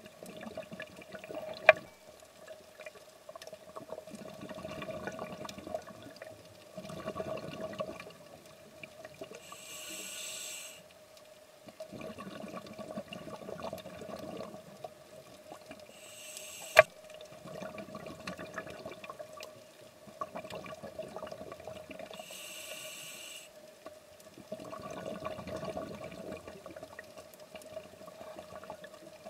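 Scuba diver breathing through a regulator underwater, about every six seconds: a short hiss on each inhale, then a few seconds of bubbling exhale. A steady hum runs underneath, and two sharp clicks stand out, one near the start and one about halfway through.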